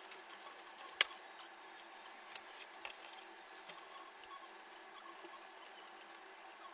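Faint scattered clicks and light taps from small hard computer parts being handled during a PC build, over a quiet hiss. The sharpest click comes about a second in.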